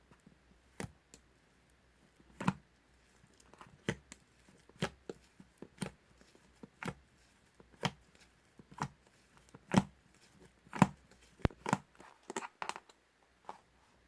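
Homemade slime being pressed and stretched by hand, its trapped air bubbles popping with sharp snaps about once a second.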